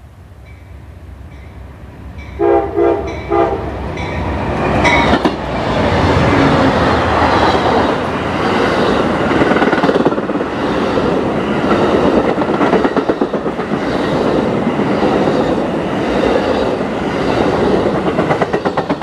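Amtrak passenger train approaching and passing close by. The locomotive horn sounds two short blasts about two and a half seconds in. Then the locomotive and Superliner bilevel cars roll past with a loud, steady rumble, and wheels clack rhythmically over the rail joints near the end.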